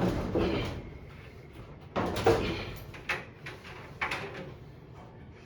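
Knocks and clunks of an appliance's panels or door being handled, the loudest a sudden knock about two seconds in, with smaller knocks about a second and two seconds after it.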